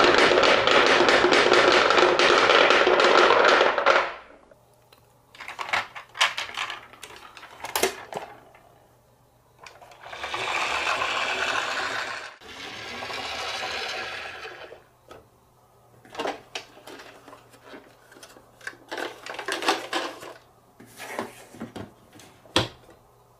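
A load of coloured balls pours into the metal bed of a toy dump truck: a dense, loud clatter for about four seconds that stops suddenly. Scattered knocks and clicks of toys being handled follow, with two longer rushing sounds in the middle.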